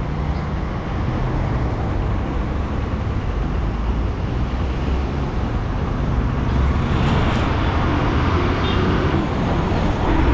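Road noise from a moving vehicle: a steady low engine hum under the rush of tyres and air, growing a little fuller about seven seconds in.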